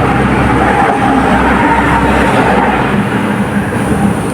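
Steady loud rumble of a vehicle running nearby, with a faint tone that sinks a little toward the end.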